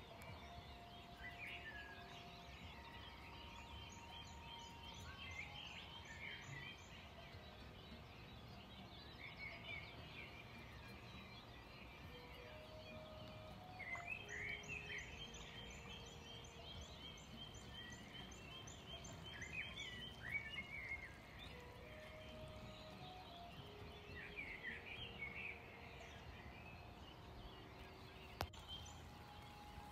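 Faint birds chirping and twittering, in scattered bursts with quick trills, over a low steady background hum.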